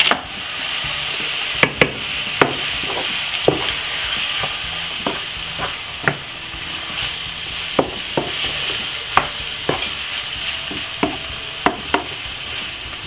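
Callaloo and mixed vegetables sizzling steadily in a frying pan as a wooden spoon stirs them, with irregular sharp taps and scrapes of the spoon against the pan.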